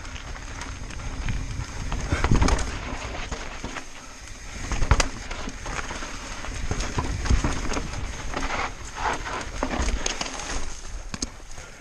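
Mountain bike riding fast down rocky dirt singletrack: tyres crunching over dirt and rock, with irregular knocks and rattles from the bike hitting bumps and a low wind rumble on the microphone.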